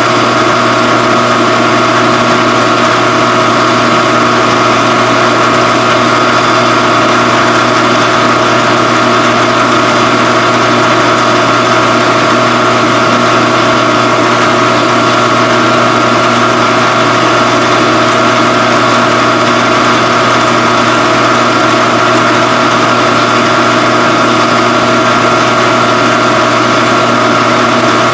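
Phase-O-Matic CNC phase converter running with a loud, unchanging electrical hum made of several steady tones, powering the three-phase mill.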